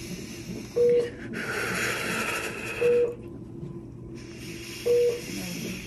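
A hospital bedside monitor beeping, a short single-pitched beep about every two seconds, over a woman in labour breathing slowly with long, hissing breaths.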